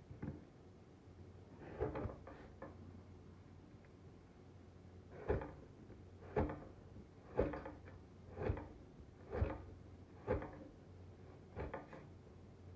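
A series of sharp knocks, roughly one a second through the second half, with a few scattered ones before.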